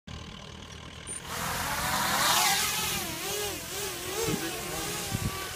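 Motors and propellers of a 250-size FPV racing quadcopter spooling up for takeoff about a second in, then a whine whose pitch rises and falls with the throttle as it flies.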